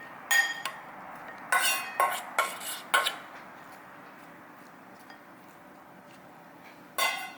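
A utensil clinking and scraping against cookware as stir-fried noodles are moved from the pan into a bowl: a run of sharp, ringing knocks over the first three seconds, then quiet until one more clink near the end.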